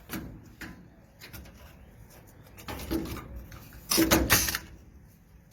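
A saw cutting at a stuck steel bed carriage bolt in a few short, irregular bursts, the longest and loudest about three and four seconds in.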